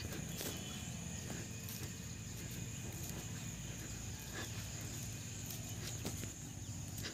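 Insects chirring in a steady, high, thin drone, with a few faint soft clicks of movement and a low rumble underneath.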